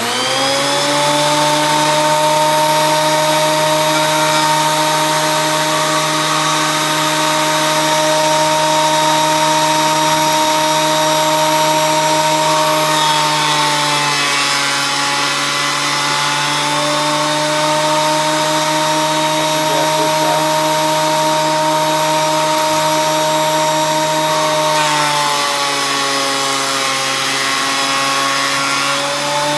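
Ryobi 10-inch benchtop thickness planer switched on and running with a steady motor whine. About halfway through and again near the end, the pitch sags and the sound gets rougher as an old 2x4 feeds through the freshly sharpened blades under load, then it picks back up.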